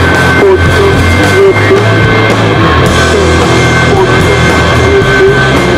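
Loud punk rock recording: distorted electric guitar and drum kit playing without a break.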